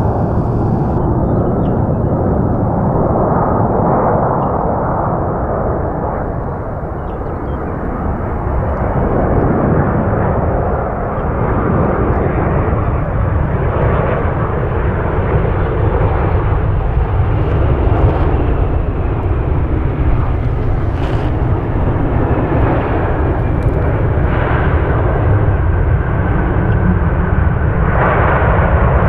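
Airbus A330-223 jet with Pratt & Whitney PW4168A turbofans on final approach and landing: loud, steady jet engine noise. A low steady hum comes in about twelve seconds in, and the sound grows brighter and a little louder near the end as the airliner touches down.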